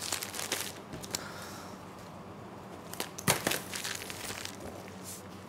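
Plastic piping bag crinkling faintly as it is twisted and squeezed, with a single sharp knock about three seconds in.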